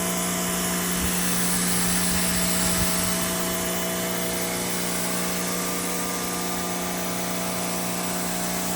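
Pressure washer running steadily: an even motor and pump hum over a constant hiss.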